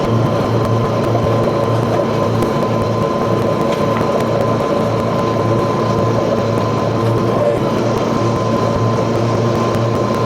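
Grasshopper front-mount mower's engine running steadily while mowing, with a steady high whine over the drone.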